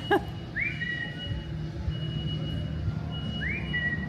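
A parrot whistling: a rising whistle that levels off into a held note, given twice about three seconds apart, over a steady low hum.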